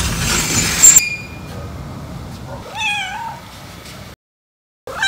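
Domestic cat meowing: one drawn-out meow that wavers in pitch about three seconds in, and a short second meow at the very end. The first second holds loud noise ending in a sharp knock.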